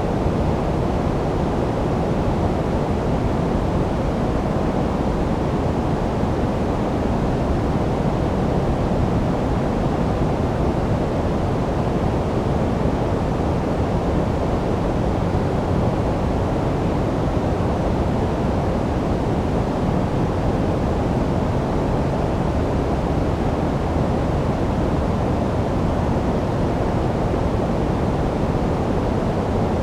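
Continuous sleep-aid noise of the white-noise kind: an unchanging even rush with no rhythm or events. It is weighted toward low pitches, so it sounds deep and muffled rather than hissy, closer to pink noise.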